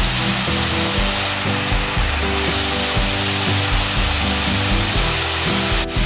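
Steady rushing hiss of a small waterfall, mixed with background music of held notes. Both dip briefly just before the end.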